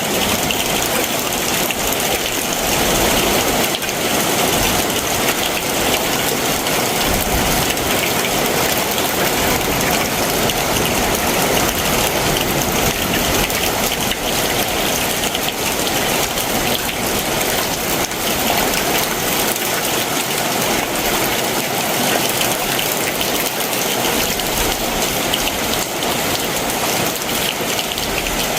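Heavy summer monsoon downpour, steady and dense, with rain pattering on surfaces.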